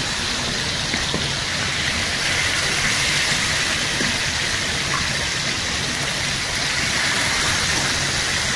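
Chicken breasts sizzling steadily in hot oil in a frying pan as they shallow-fry to golden brown.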